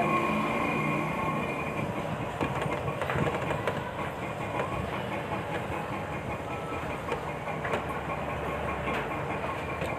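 Steady street background noise with a motor vehicle engine running, and light clicks now and then.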